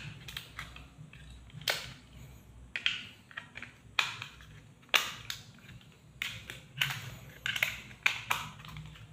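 Sharp, irregular plastic clicks, about nine over the stretch, from a small white plastic remote control being handled and its buttons pressed to switch a solar UFO lamp on and off.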